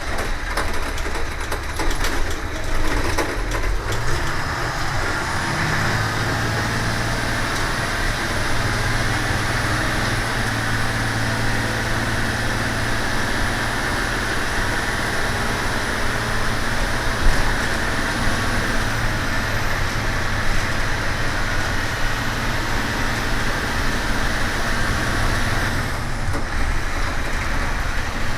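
1999 Amtran school bus's diesel engine running while the bus drives, with road noise. The engine note climbs about four to six seconds in and then holds steady.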